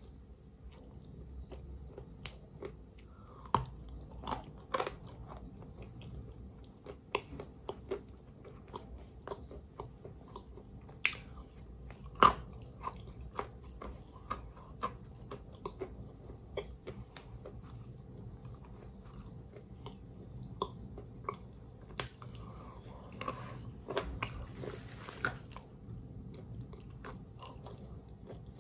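Chalk coated in a white paste being bitten and chewed close to the mouth: irregular sharp crunches with softer wet mouth sounds between them, the loudest crunches about 11 and 12 seconds in.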